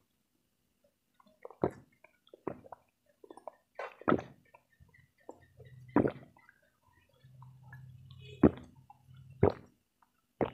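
Close-miked gulping and swallowing while drinking from a glass: a loud wet gulp every second or so, with smaller mouth and swallowing sounds between.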